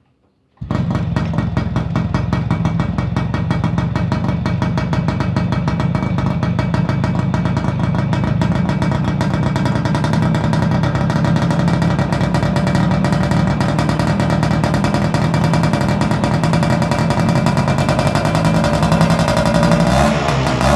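Yamaha F1ZR's two-stroke single-cylinder engine running steadily through a modified street-racing exhaust, a rapid, even crackle of firing pulses. It cuts in abruptly about half a second in.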